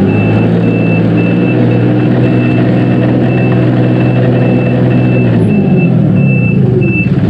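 Dongyang TX653 tractor's diesel engine running steadily under way, its pitch rising about five seconds in. A high-pitched beep repeats about twice a second and stops shortly before the end.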